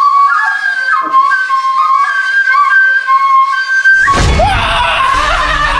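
Background music: a flute-like melody wavering between two notes. About four seconds in, fuller music with a bass line comes in.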